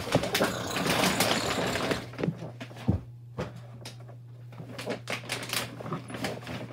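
Rustling and scattered knocks from a person moving about at a desk close to the microphone: a dense rustle for about the first two seconds, then occasional small knocks and clicks over a steady low hum.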